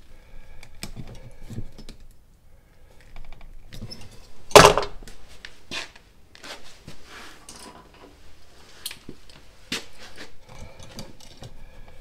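Wire strippers clicking and scraping as insulation is stripped from an electrical wire and the wire is handled, with one sharp knock about four and a half seconds in, the loudest sound.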